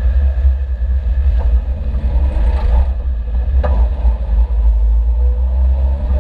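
Car on the move: a steady, heavy low rumble of engine and road, with two short sharp knocks about a second and a half and nearly four seconds in.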